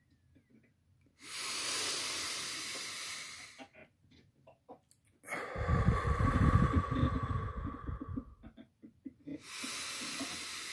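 A man breathing deeply and forcefully in a breathing exercise meant to make him light-headed: three long breaths, the middle one the loudest with a low rumble on the microphone.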